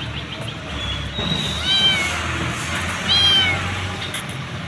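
Hungry stray kitten meowing for food: two high, arched meows about a second and a half apart.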